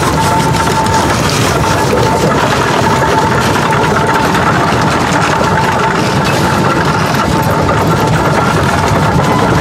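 Steady running noise of a 1920 Advance Rumely steam traction engine, a constant mechanical rumble and hiss with a thin steady high tone through it.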